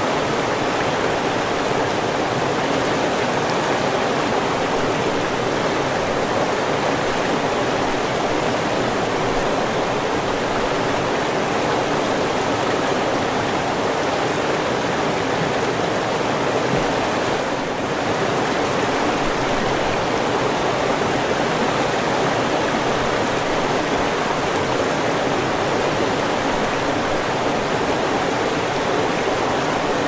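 Steady rushing of flowing river water, an even noise that dips briefly a little past halfway.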